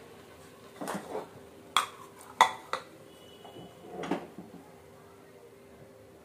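Metal kitchen utensils knocking and clinking against pans and the steel gas stove: a scattering of separate clanks, the sharpest a little over two seconds in, over a faint steady hum.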